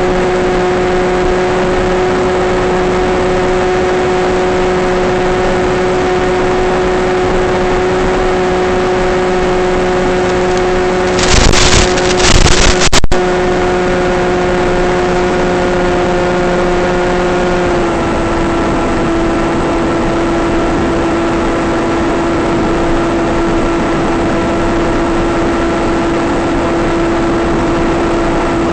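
Steady hiss with a constant hum of several tones from an analog 5.8 GHz FPV video link's audio, recorded by the goggles. About eleven seconds in it breaks into loud crackling static for a couple of seconds as the radio signal falters, and a little before the eighteen-second mark the hum steps slightly lower in pitch.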